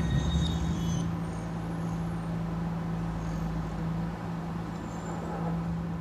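A steady low hum over a faint rumbling hiss, easing slightly in the first couple of seconds and then holding even.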